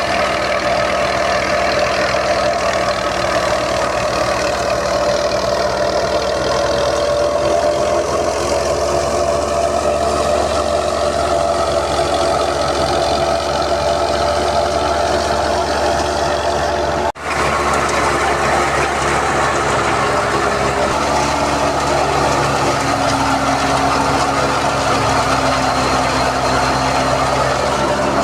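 Wheat thresher running steadily, driven by a tractor engine, with a dense machine drone whose pitch drifts slowly. It breaks off for an instant about two-thirds of the way through.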